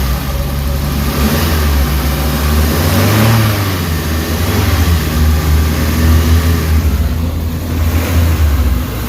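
Suzuki Carry engine running and revved by the accelerator, with a rise in engine speed about three seconds in before settling back. It responds quickly to the throttle and runs without shudder after an XADO fuel additive treatment.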